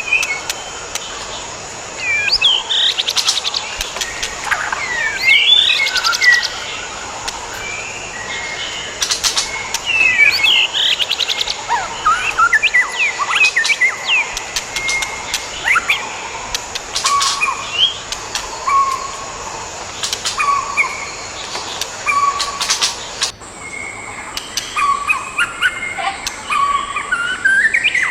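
White-rumped shamas calling and singing: a busy run of short chirps, whistled notes and quick up-and-down glides, mixed with rapid trains of sharp clicking notes. A steady high-pitched tone runs beneath.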